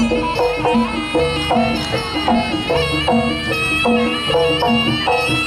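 Jaranan ensemble music from East Java: a reedy, piercing melody of held notes, the slompret shawm, played over drums and gongs in a steady repeating pattern.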